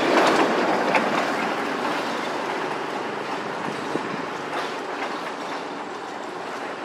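A passing motor vehicle's rushing noise, loudest at the start and fading away.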